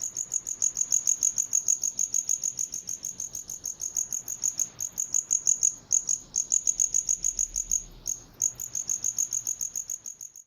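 Cricket chirping: high-pitched chirps repeated at about eight a second, with brief pauses around six and eight seconds in.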